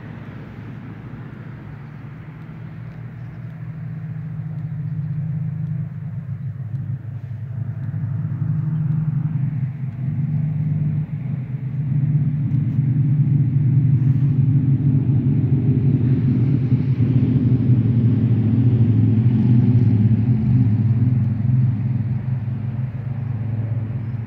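A low, steady engine rumble that swells louder over the first half, is strongest past the middle, and eases off slightly near the end.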